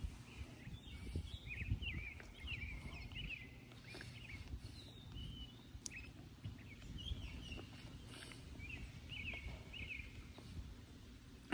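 Birds chirping, a steady run of short, quick up-and-down chirps, over a low outdoor rumble.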